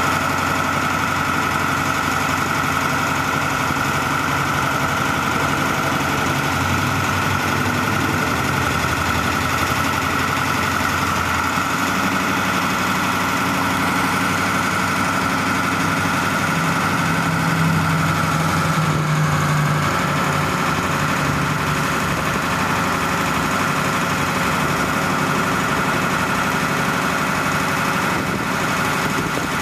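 Telescopic boom crane's diesel engine running steadily, with a steady high whine over it; the engine note shifts a couple of times while the hook is lowered.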